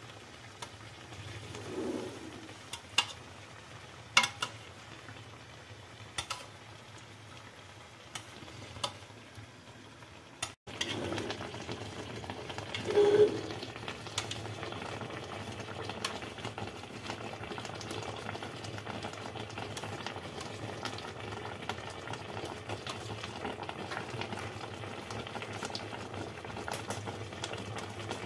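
Sugar syrup bubbling under a bread kadayıf in an enamel pan on a gas burner, with a few sharp clinks of a metal spoon against the pan in the first half. After a break about ten seconds in, the bubbling is steadier and a little louder, with a dull bump soon after.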